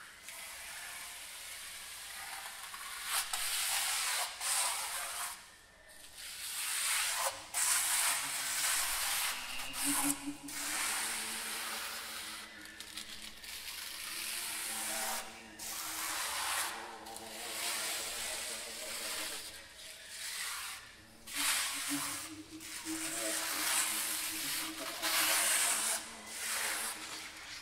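Experimental live sound performance: breathy hissing and rushing noises that swell and break off every second or two. A low held tone sounds beneath them about ten seconds in and again past twenty seconds.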